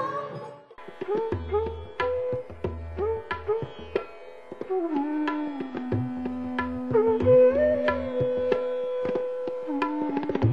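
South Asian instrumental music: tabla drumming with deep bass strokes under a slow, gliding melody line. The music starts about a second in.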